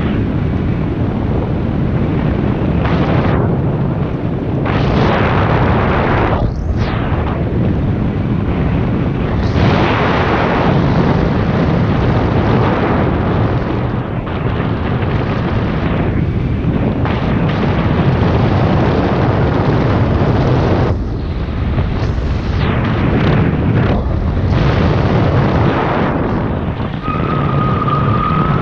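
Loud wind rushing over the camera microphone in flight, gusting and easing every few seconds. A brief steady high tone sounds near the end.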